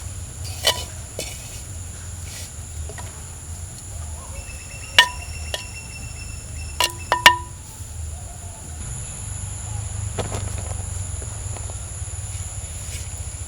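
Metal kitchen utensils clinking a few times, with a brief ring, the loudest about five and seven seconds in, over a steady high-pitched drone and a low hum.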